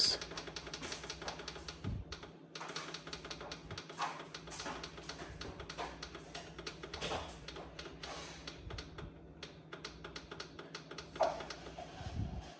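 Rapid clicking of the up-arrow pad on a Frigidaire electric range's control panel, tapped over and over, about four or five presses a second, as the timer is stepped up to an hour and twenty minutes.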